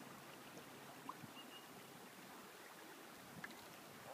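Faint, even water noise from kayaks being paddled on a river, with two soft knocks, one about a second in and one near the end.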